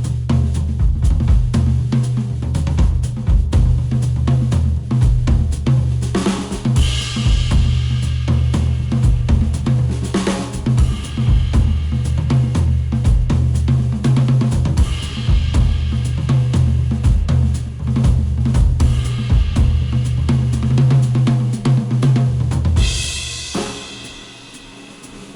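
Instrumental music with a steady drum-kit beat and heavy bass, played through HiFiMAN HE1000 V2 planar-magnetic headphones and picked up by microphones at the earcups. Near the end the bass and beat drop away, leaving a quieter, cymbal-bright passage.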